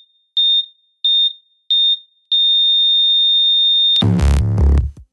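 Patient heart monitor beeping in time with a heartbeat, three short beeps about two-thirds of a second apart, then going into one long unbroken flatline tone, the sign of cardiac arrest. About four seconds in, loud electronic music with a heavy drum-machine beat cuts in.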